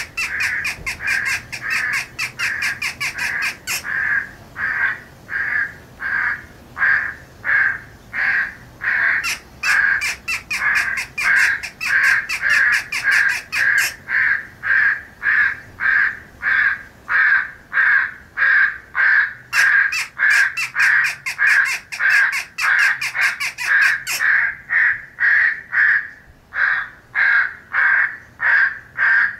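Several crows cawing without a break, about two caws a second. This is a recording of feeding corvids made to be played through an electronic game caller.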